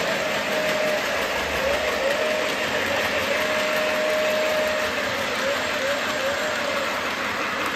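Electric model trains running fast around a layout: a steady rattling rumble of wheels on track, with a high motor whine that breaks into short rising swoops several times.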